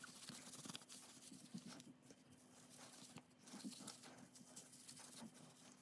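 Faint rustling and rubbing of a paper tissue wiping a clear silicone phone case, a scratchy scatter of small rubs and crinkles, with a faint steady hum underneath.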